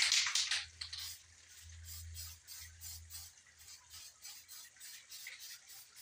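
Aerosol spray-paint can: a loud hiss of spraying for about the first second, then a quick run of short, sharp sounds, about three to four a second.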